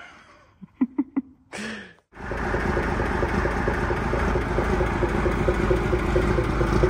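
A Foden 6x6 army recovery truck's diesel engine idling steadily while warming up, with an even fine ticking running through it. It comes in suddenly about two seconds in, after a few short faint sounds.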